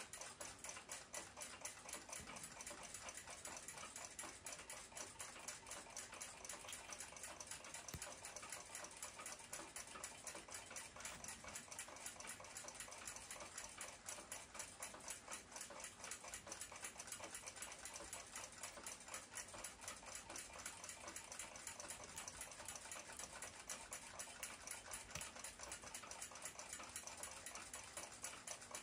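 Faint, steady ticking of a clock, an even run of quick ticks several times a second.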